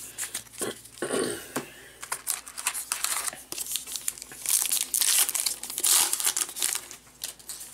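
A trading-card pack wrapper being torn open and crinkled by hand: a dense, crackling rustle, loudest a little past the middle.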